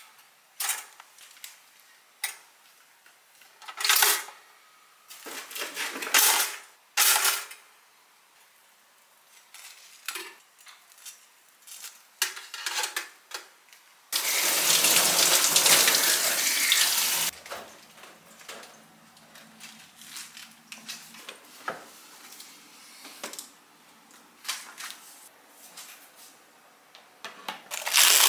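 Kitchen handling sounds at a toaster: bread slotted into a two-slice toaster and a scattering of short clicks and knocks from the toaster and toast. About halfway through, a steady rushing noise lasts about three seconds, then faint small clatters; near the end a box of plastic wrap being handled starts to crinkle.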